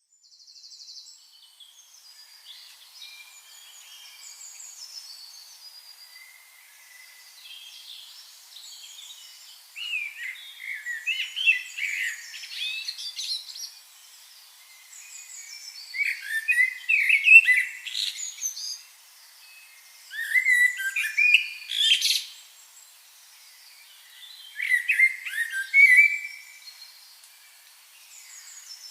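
Songbirds singing: faint chirping for the first ten seconds or so, then a closer bird sings loud phrases of quick chirps and whistles about every four seconds, with short pauses between.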